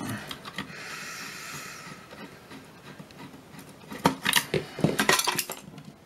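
A screwdriver backing out a screw and a metal instrument case being worked off its chassis: a soft scraping hiss first, then a cluster of sharp metallic clinks about four seconds in.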